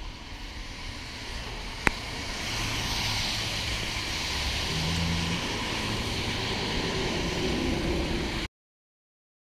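Steady hiss of rain falling on pavement and the car, growing louder about two seconds in, with a sharp click just before; it cuts off suddenly near the end.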